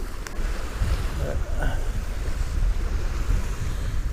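Wind buffeting the microphone as a steady low rumble, with a couple of faint clicks.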